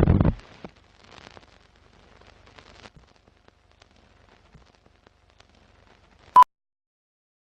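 A sudden low boom at the start, fading within half a second into faint crackling, then a short sharp click with a brief beep about six seconds in.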